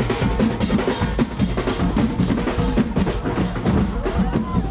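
Loud drum-heavy music, with bass drum and snare playing a dense, busy beat.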